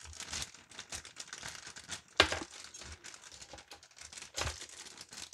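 A plastic kit parts bag crinkling as it is handled and pulled open by hand, with two sharper, louder crackles about two seconds in and again about four and a half seconds in.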